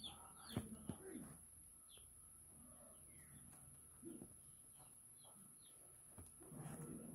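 Faint bird chirps in the background, short falling notes scattered through, thickest at the start. Two sharp clicks about half a second and one second in.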